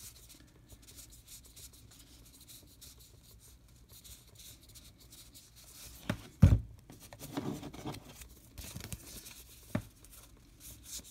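Cardboard baseball cards sliding and rubbing against each other as a hand-held stack is thumbed through, with a louder rustle of the cards a little after the middle. A dull thump about six and a half seconds in and a short sharp knock near the end.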